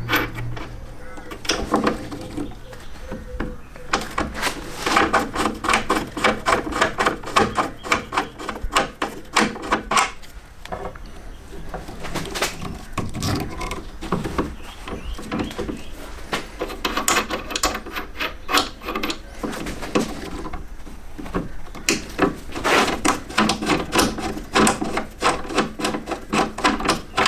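Hand-lever rivnut tool being worked to set an M10 rivnut in a steel chassis rail: bursts of rapid rasping clicks as the threaded mandrel is wound and the handles are pulled together, with short pauses between.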